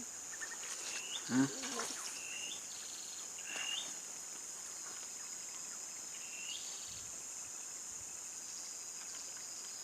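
Steady high-pitched drone of insects, with a short call that rises at its end, repeated about five times. A brief low sound stands out about a second and a half in.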